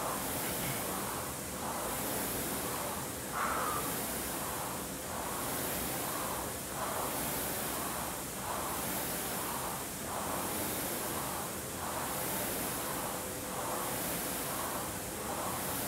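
Air-resistance rowing machine's fan flywheel whooshing under steady rowing: a rushing noise that swells on each drive and fades on the recovery, about once every 1.7 seconds.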